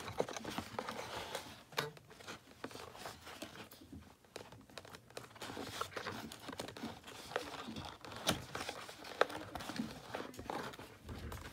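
Toy packaging being unpacked by hand: crinkling and tearing of plastic and cardboard, with many scattered sharp clicks and rustles.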